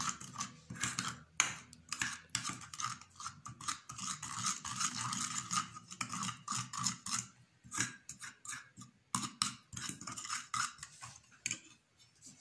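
A metal spoon stirring and scraping around a small ceramic bowl, making a rapid, uneven run of clinks and scrapes as oil and ground spices are mixed.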